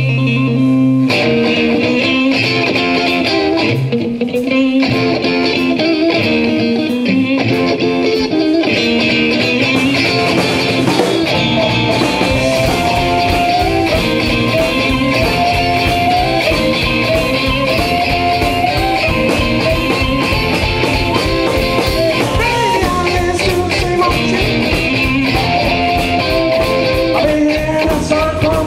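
A blues band playing live: electric guitar over bass guitar and a drum kit. The drums and cymbals fill out about ten seconds in.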